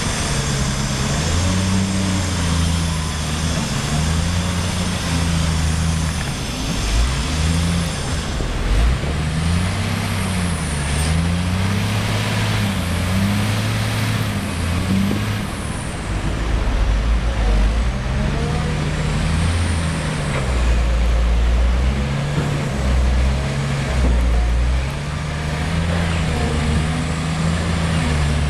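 Caterpillar 966H wheel loader's diesel engine running under load, its pitch rising and falling again and again as it is revved up and down. A high whistle rises and falls along with it in the middle stretch.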